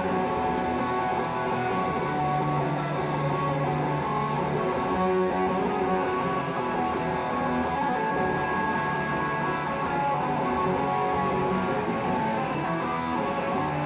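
Live performance by an electric guitar and an acoustic guitar strumming together through an instrumental stretch of a rock song, with no singing; the playing stays at a steady level.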